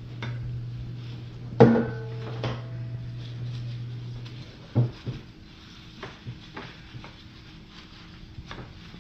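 Stainless steel mixing bowl knocks against a glass baking dish about one and a half seconds in and rings briefly as raw meatloaf mixture is tipped out. A second knock comes near five seconds in, then soft taps as gloved hands pat the meat into the dish. A steady low hum underneath stops about five seconds in.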